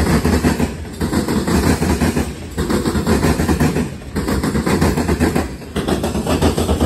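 Freight train of covered hopper grain cars rolling past close by: a steady rumble of wheels on the rails, dipping briefly about every one and a half seconds as each car goes by.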